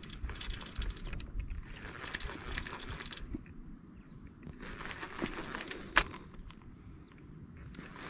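Baitcasting reel being cranked in short spells against a hooked blue catfish, giving clusters of clicking and rustling with a sharp click about six seconds in. A thin steady high tone runs underneath.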